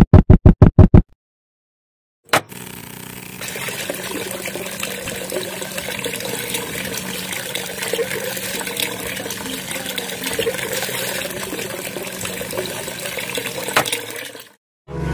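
Miniature DC water pump running, with water pouring and trickling from small pipe spouts into a plastic trough; a faint steady motor hum under the splashing. A single click a couple of seconds in sets it going.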